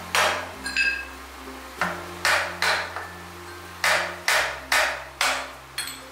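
A cut piece of ceramic hexagonal floor tile worked by hand at a manual tile cutter: about nine sharp, gritty strokes in quick irregular succession, each fading within a fraction of a second, one with a brief ceramic ring.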